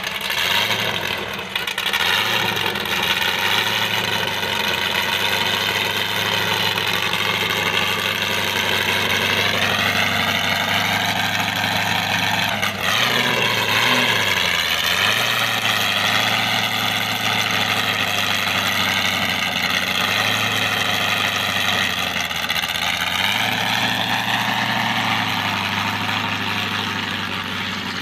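Rally buggy engine idling loudly and steadily, with a few light blips of the throttle, the biggest about halfway through.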